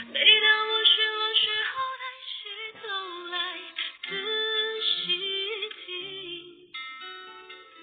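A woman singing a slow song over instrumental backing, heard as a live stream with the top end cut off.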